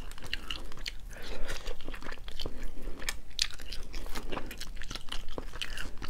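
Close-up crackling and snapping of a cooked slipper lobster's hard shell being pried and broken apart by hand, mixed with chewing of the firm meat, as a run of irregular small cracks.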